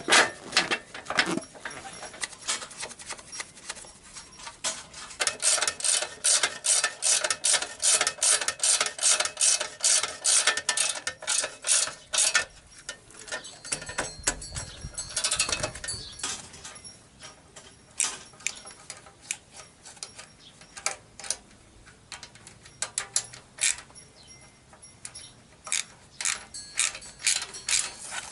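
Socket ratchet wrench clicking in quick runs as the bolts and exhaust header nuts holding a motorcycle's refitted muffler are tightened. There is a dull thump about halfway through.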